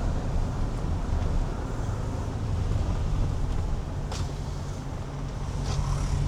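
Car driving, heard from inside the cabin: a steady low rumble of engine and road noise, with a couple of faint ticks in the second half.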